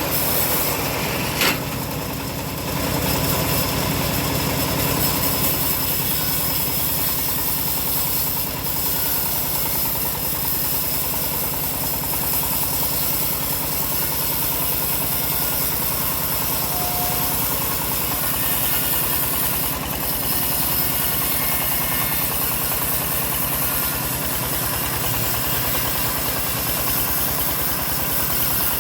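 The engine of a homemade bandsaw sawmill running steadily, with one brief click about a second and a half in.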